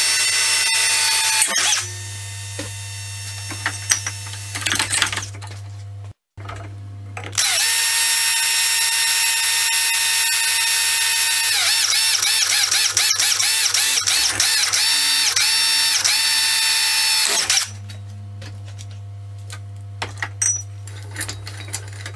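Cordless drill drilling into a steel bench-vise jaw: a steady high whine that stops about a second and a half in, then runs again for about ten seconds from around 7 seconds, its pitch wavering under load in the later part. Light clicks and knocks of handling come between and after the drilling spells.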